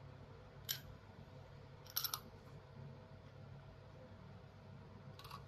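A few small, sharp clicks of a laser cutter's metal lens tube and lens parts being handled: one under a second in, two close together about two seconds in, and one near the end, over a faint steady hum.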